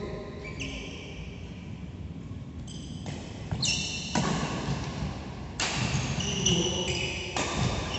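Badminton rally: racket strings striking the shuttlecock in several sharp cracks starting about three seconds in, with sneakers squeaking on the court mat, echoing in a large hall.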